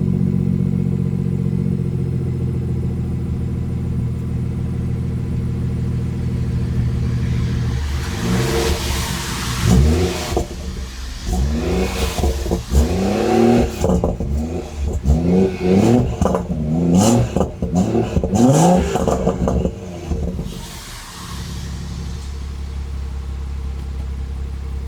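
BMW M140i's 3.0-litre turbocharged straight-six idling steadily through a 4-inch decat downpipe and stock back box, then blipped hard about once a second for a dozen quick revs with sharp cracks on the overrun, before dropping back to a steady idle.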